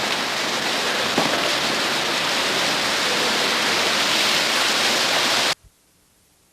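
Heavy rain, a steady rushing hiss with a faint knock about a second in, cutting off abruptly about five and a half seconds in.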